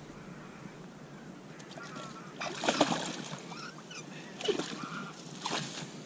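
Hooked pike thrashing at the surface close to the bank, splashing in short bursts: first about halfway through, then twice more near the end.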